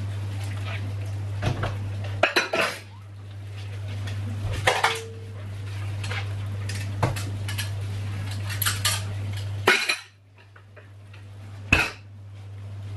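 Dishes being washed in a stainless steel sink: plastic cups and plates knocking and clattering against the sink and a metal bowl at irregular moments, with the tap running.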